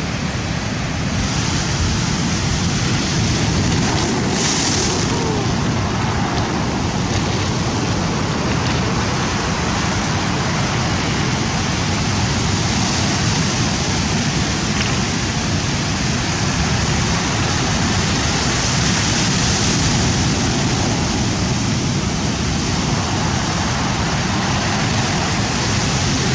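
Rough sea surf washing and breaking steadily along the shore, with wind on the microphone.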